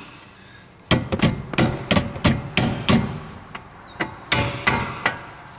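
Hammer tapping on the rusted lever of a car's rear brake caliper, soaked in penetrating oil, to free a frozen part. A quick run of about ten metal taps begins about a second in, followed by a few slower, spaced taps.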